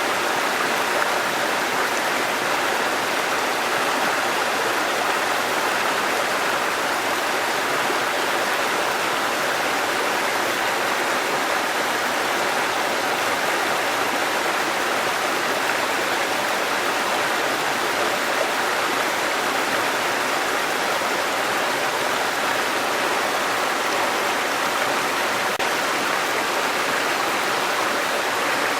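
Waterfall: water falling and rushing steadily, an even hiss with no breaks or changes.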